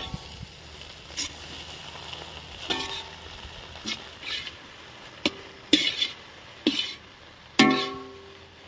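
Metal ladle stirring and tossing fried rice in a large metal cooking vessel after the soy sauce goes in: about eight metallic clanks, each ringing briefly, the loudest near the end.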